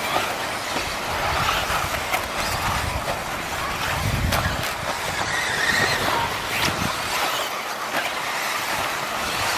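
Electric 4WD RC off-road cars with stock 13.5-turn brushless motors racing on a carpet track: a steady mix of motor whine and tyre noise on the carpet.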